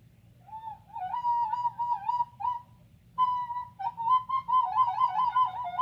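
Recorder played badly: a shrill, wavering run of short notes that wobble up and down within a narrow range, stopping for a moment about halfway through and then starting again.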